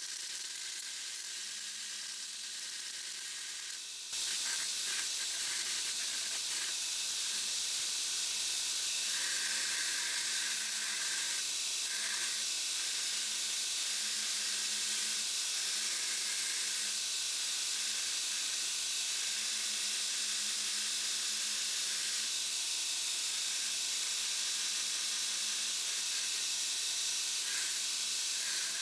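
2x72 belt grinder running with a Damascus steel knife blank pressed against the belt, a steady hissing grind as the blank's outline is profiled. The grinding gets louder about four seconds in and then holds steady.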